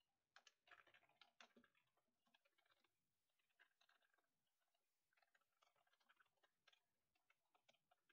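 Near silence with faint, scattered computer keyboard keystroke clicks from typing, a cluster in the first second and a half and only a few after.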